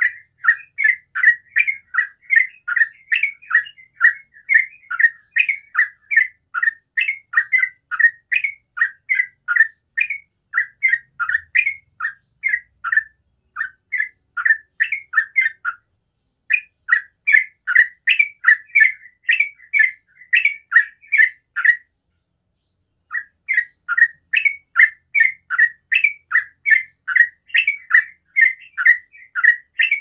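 Caged yellow-vented bulbul (trucukan) singing in 'ropel' style: a fast, unbroken run of short chirping notes, a few each second, with two brief pauses past the middle.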